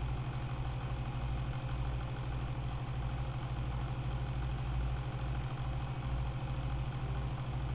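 A machine running steadily, a low hum with a regular throb, like an idling engine.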